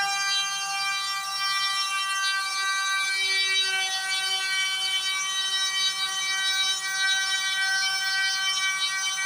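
DIY CNC router running steadily while carving wood, its spindle motor giving an even, high whine that holds one pitch.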